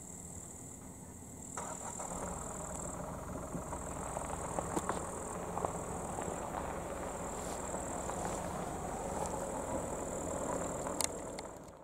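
Low rumble of road traffic over a steady high insect buzz; the rumble swells about a second and a half in and fades out just before the end.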